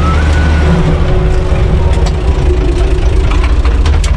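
UTB 445 tractor's diesel engine running steadily, heard from inside the cab, with a few sharp clicks and rattles near the end.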